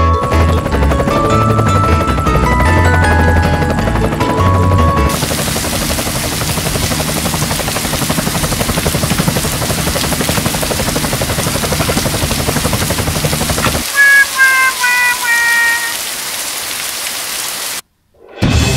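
Children's background music, then an added airplane engine sound effect: a loud steady noise for about nine seconds while the toy plane flies. Near the end it gives way to a short run of stepped falling notes, a cartoon effect for the plane going down, and the sound cuts out briefly just before the end.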